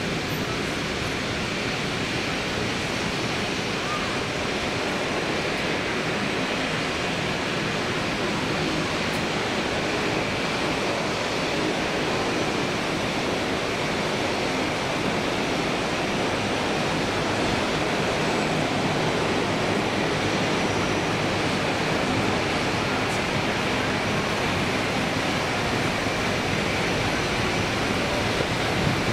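Steady rushing roar of an Airbus A321 airliner's jet engines as it touches down on a wet runway and rolls out, growing slightly louder through the roll-out.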